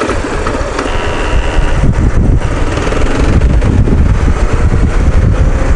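Sport motorcycle's engine running under way, with a steady, uneven low rumble, as the bike rides through a town street and takes a turn.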